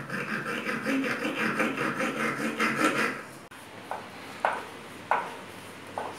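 Fast, rhythmic rasping of a hand tool scraped against a wooden box, stopping abruptly about three and a half seconds in. After that come a few separate short brush strokes on the bare wood.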